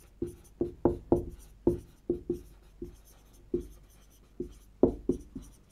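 Dry-erase marker writing on a whiteboard: an irregular run of short taps and scrapes as letters are stroked out, each ringing briefly in the board.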